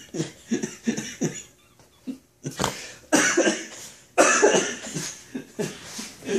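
Stifled laughter in short rapid bursts, then two loud coughing bursts about a second apart.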